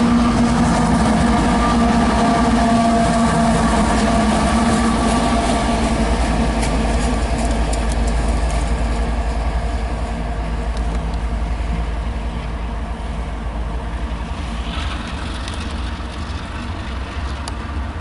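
Diesel locomotive at the tail of a loaded coal train passing close with its engine running and wheels rolling on the rails, then fading about halfway through as it draws away, over a steady low rumble.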